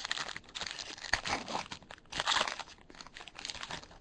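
Crinkling and tearing of a Bowman Chrome baseball card pack's wrapper as the pack is opened and its cards are handled: a dense run of irregular crackles.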